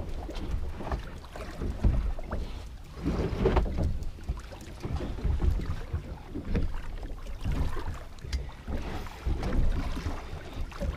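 Wind buffeting the microphone and water slapping against a small boat's hull, an uneven low rumble that rises and falls in gusts, with a few light knocks.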